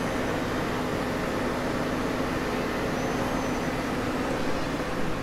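Steady hum and whir of a powered-up Miyano BND-34S CNC lathe, a constant low tone over even machine noise.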